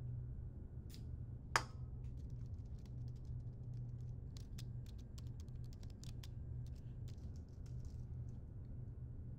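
An aluminium drink can's tab snapping open with one sharp crack about a second and a half in, followed by quick irregular typing on a laptop keyboard, over a steady low hum.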